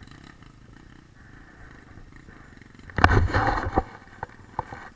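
Honda XR600's single-cylinder four-stroke engine idling low, then a loud burst about three seconds in as the bike lurches forward on the trail, followed by a few sharp knocks.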